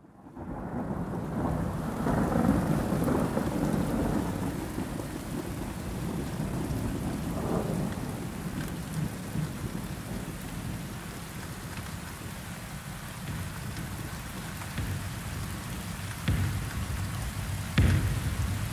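Rain falling steadily, with thunder rumbling in the first few seconds and two sharp thunder cracks near the end.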